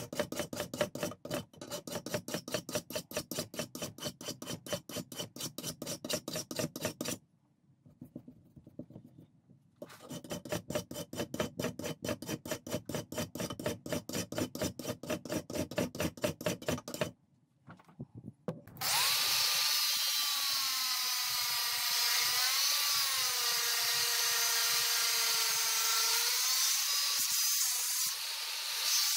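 Rapid, even back-and-forth hand strokes of a flat abrasive bar along the edge of a metal farm-tool blade clamped in a vise, in two long runs with a pause between. About nineteen seconds in, this gives way to a Hilti angle grinder running steadily, its whine wavering up and down in pitch.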